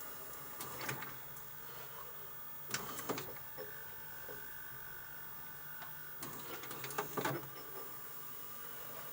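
Strange garbled audio from the end of a VHS tape: a low hum and hiss with bursts of crackling clicks about a second in, around three seconds and again around six to seven seconds, and a thin steady tone between about four and six seconds.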